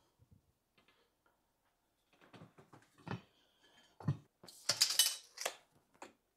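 Metal parts clinking and clanking as a riding mower's wheel and its loose hardware are handled. It starts with faint scattered clicks, then comes a run of sharper clanks, the loudest ringing metallically about two-thirds of the way through.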